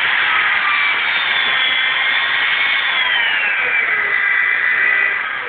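Homemade clamp-built bench grinder running on its high speed setting with a loud, steady motor whine. About three seconds in the pitch drops, and near the end it begins to wind down.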